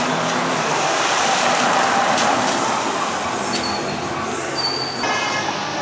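Bentley Continental GT pulling away on wet paving, its engine running under a steady hiss of tyres on the wet ground, loudest about two seconds in.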